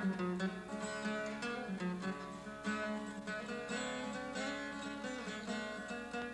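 Background music of a plucked string instrument playing a melody of quick, separate notes.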